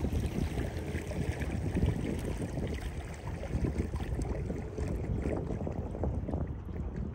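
Wind buffeting the microphone with a steady low rumble, over small splashes and water lapping against a kayak moving slowly through shallow marsh water.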